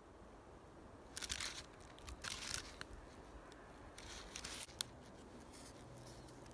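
Fixed-blade knife cutting a strand of twine, in three short strokes with a sharp click just after the third.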